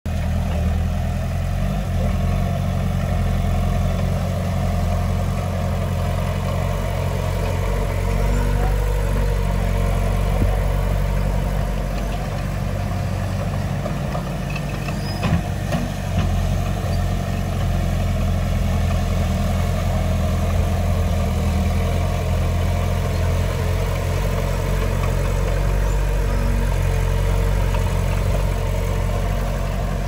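Heavy diesel engine of earthmoving machinery running steadily, with a couple of brief knocks about halfway through.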